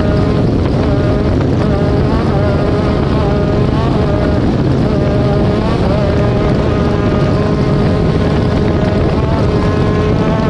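Off-road race vehicle's engine running hard and steady, its pitch wavering slightly, over a constant rush of noise.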